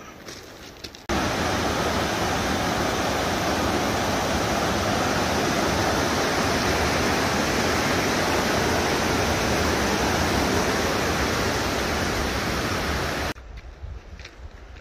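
Steady rushing water, an even unbroken noise that cuts in abruptly about a second in and stops abruptly shortly before the end.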